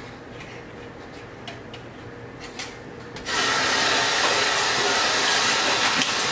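A few light clicks and knocks of kitchenware being handled, then a kitchen tap turned on about three seconds in, water running steadily into the sink.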